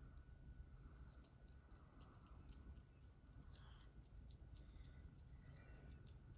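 Faint, quick, irregular run of dry scratches from long fingernails raking through a scalp flaked with dandruff.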